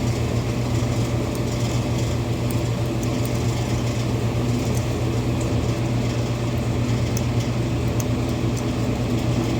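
Steady low mechanical hum of a running fan or air-conditioning unit, with a few faint light clicks of small metal tools working a jet out of a snowmobile carburettor.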